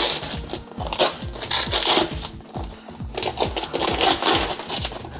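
Background music with a steady beat, with short rustling bursts from the gift's wrapping and box being handled.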